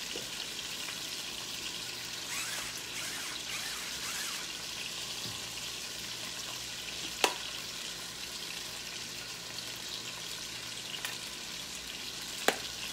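Chicken thighs sizzling steadily as they sear in oil and butter in a skillet, with two sharp clicks, one about seven seconds in and one near the end.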